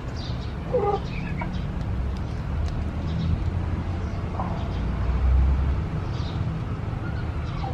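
A few short chicken calls, about a second in and again around four and a half seconds, over a steady low rumble.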